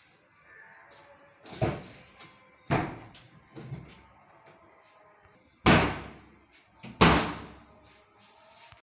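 PVC kitchen wall-cabinet doors being swung open and shut, making about five sharp knocks against the cabinet body. The last two knocks, near the end, are the loudest.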